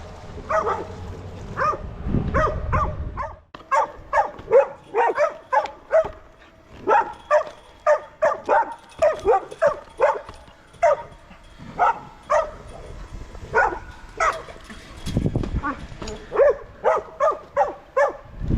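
A dog barking over and over, about two barks a second, with a few short pauses.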